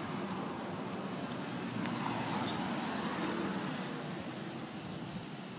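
Steady high-pitched insect chorus, unbroken throughout, over a low hum of road traffic that swells a little midway.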